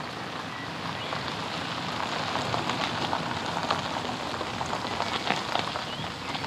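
Car tyres rolling slowly over a gravel track: a steady crunching hiss with small stones popping under the wheels, growing louder as the cars draw near.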